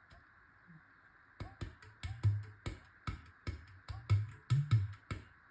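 Handmade clay udu drum played by hand: sharp taps on the body mixed with deep bass tones, in a quick rhythm that starts about a second and a half in.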